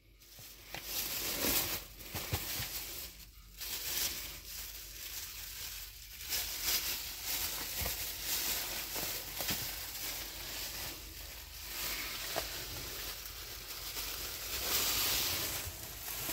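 Thin plastic grocery bags rustling and crinkling on and off as they are handled and moved about.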